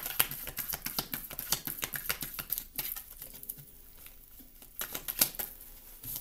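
A tarot deck being shuffled by hand: a run of quick, light card clicks for about three seconds, then a quieter stretch and a few more clicks near the end.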